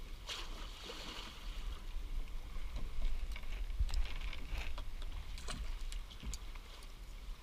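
Water lapping and sloshing around a kayak over a low steady rumble, with scattered small clicks and taps from pliers and line as a small fish is unhooked.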